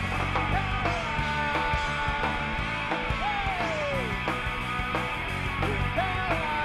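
Live rock band playing a song led by electric guitar, with a long falling sliding note about three seconds in.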